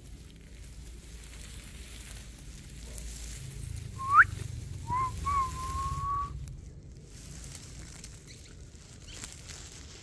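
Clear whistled notes: a sharp upward-sweeping whistle about four seconds in, then a short rising note and a longer held whistle that rises slowly over about a second.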